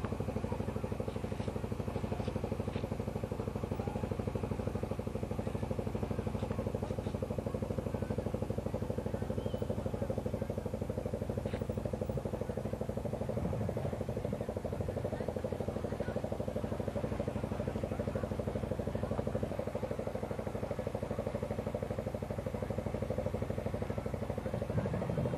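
An engine running steadily at a constant speed, with an even, fast pulse and no change in pitch.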